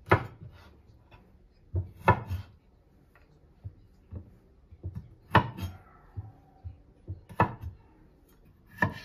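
Kitchen handling sounds: five sharp knocks on a wooden surface spaced about one and a half to three seconds apart, with soft rubbing and handling between them. The third knock is followed by a short ringing, as of a dish or utensil.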